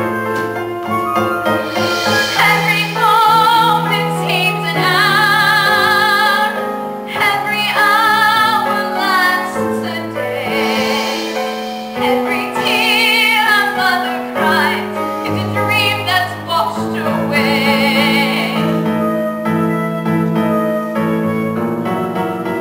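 A woman singing a slow ballad with wide vibrato over piano accompaniment. The piano plays alone at first, the voice enters about two seconds in, sings several long phrases, and drops out near the end, leaving the piano.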